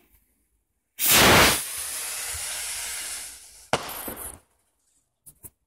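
A firework rocket launches about a second in with a sudden loud hiss that carries on for a couple of seconds and fades. It then bursts with a sharp bang and brief crackling, and two small pops follow near the end.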